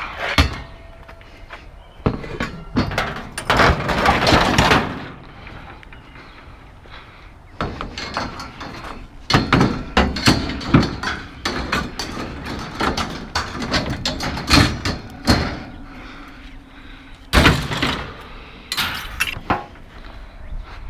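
Scrap metal being handled and loaded, with irregular clanks, thuds and clattering in several bursts and short quiet gaps between.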